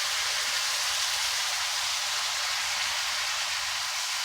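Garbanzo beans and onions sizzling steadily in hot oil in a pan.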